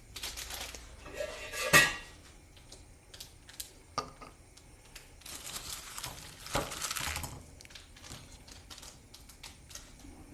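Kitchen dishes and cutlery clinking and clattering during meal preparation, with a sharp clack about two seconds in and a longer stretch of noise in the middle.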